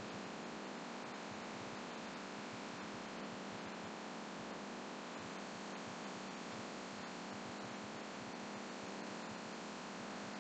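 Laminar flow hood blower running, a steady hum and hiss of air forced through its filter, with a few faint scattered ticks.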